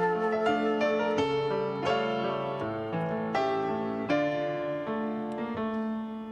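Piano playing a slow hymn passage on its own: struck chords over a bass line that steps downward, with the flute and saxophone silent.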